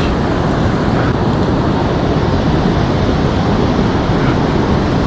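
Steady rush of wind on the microphone over the wash of ocean surf.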